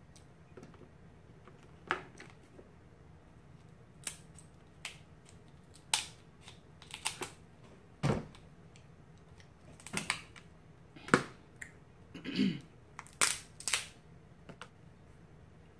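Crab leg shells being cracked and pulled apart by hand: a string of sharp, irregular cracks and snaps, the loudest about eleven seconds in.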